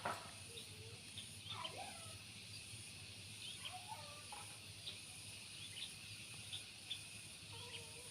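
Quiet outdoor ambience with faint, scattered bird chirps and a few short gliding calls.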